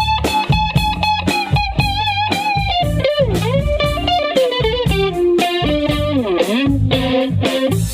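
Electric guitar playing a lead line of held, sustained notes with vibrato and string bends, including a deep downward bend a little after halfway, over a steady bass-and-drum backing.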